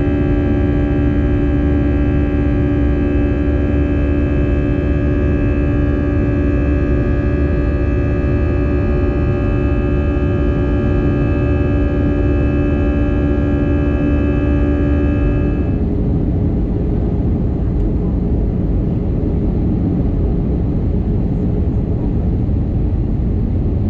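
Steady low rumble and rush of an Airbus A320-family airliner's cabin in flight, engine and airflow noise heard from a window seat during the descent. A hum of several steady held tones sits over it and stops abruptly about sixteen seconds in, leaving only the rumble.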